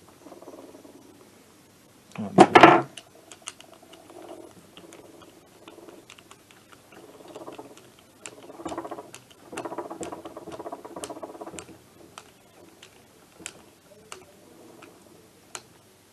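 A small hand wrench turning the nuts of a blanking cap fitted to a two-stroke engine's intake, heard as short bursts of rapid squeaky clicking with a few single clicks. A loud clatter comes about two and a half seconds in.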